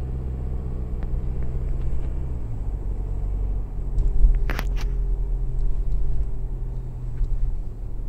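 Inside a moving car's cabin: a steady low drone of engine and road noise, whose engine note shifts down about two and a half seconds in. A brief sharp double tick comes about four and a half seconds in.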